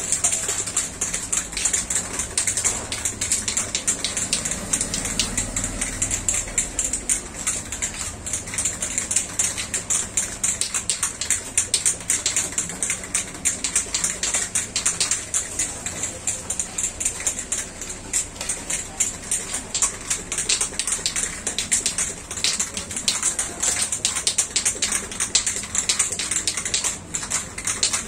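Aerosol spray paint can being shaken hard, the mixing ball inside rattling in a fast, continuous clatter that mixes the paint before spraying.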